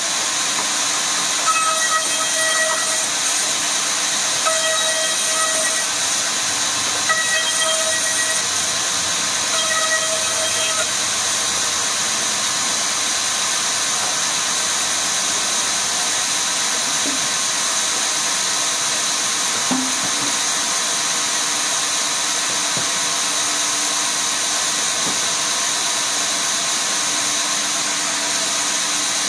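Woodworking machinery running with a steady, loud hiss and a constant high whine. In the first ten seconds or so, a pitched tone rises out of it four times, each lasting about a second.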